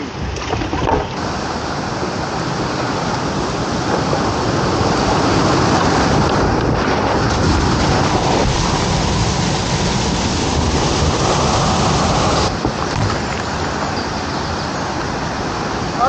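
Roar of a waterfall and churning whitewater close around a kayak, loud and steady. It drops suddenly about three quarters of the way through to a softer rush of moving water.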